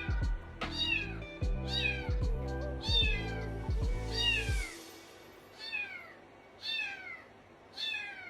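A cat meowing over and over, about once a second, each meow falling in pitch. Background music with a steady bass beat plays under the first half and stops about halfway through, leaving the meows alone.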